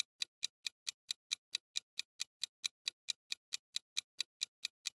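Countdown timer sound effect ticking steadily, about four to five even, clock-like ticks a second, while the quiz answer is held back.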